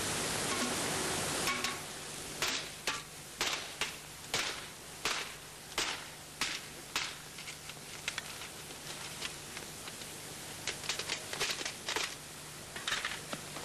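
A metal tin being struck open with a hand tool: a series of sharp metal knocks, about one or two a second, then a quicker cluster of taps about eleven seconds in and a few more near the end.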